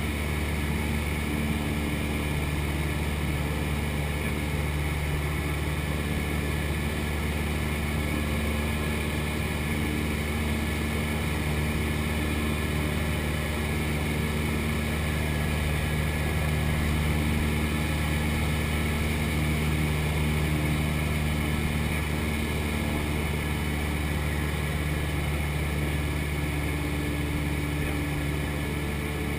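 Cessna 172 Skyhawk's piston engine and propeller droning steadily, heard from inside the cockpit, with a slight swell in loudness about halfway through.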